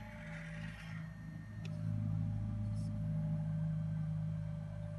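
Battery-powered hydraulic pump of a radio-controlled CAT 336 model excavator running with a steady low hum, which gets louder about two seconds in as the boom swings round and the arm lowers the bucket into the pit. There is a single sharp click shortly before the hum rises.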